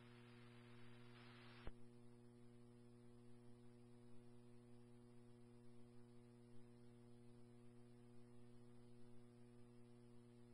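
Near silence between scanner radio transmissions: a faint steady electrical hum, with a little hiss dying away in the first second or so and a small click under two seconds in.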